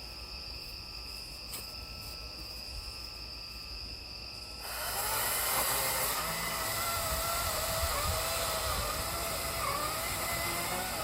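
Cordless electric chainsaw, quiet for the first few seconds, then running and cutting wood from about five seconds in, its motor whine wavering in pitch as the chain loads up in the cut.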